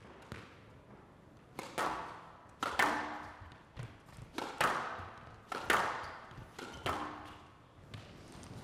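Squash rally: the ball smacked by rackets and hitting the walls of a glass court, sharp echoing strikes mostly in quick pairs about once a second.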